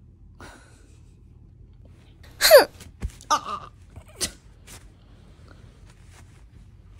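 A dog's short yawning whine that falls steeply in pitch, followed by a few short, sharp puffs of breath.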